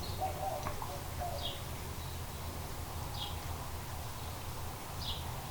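Faint bird chirps: short, high, falling notes repeating about every two seconds over a steady low hum.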